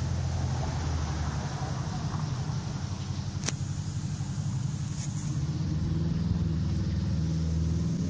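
A steady low motor rumble, with one sharp click about halfway through.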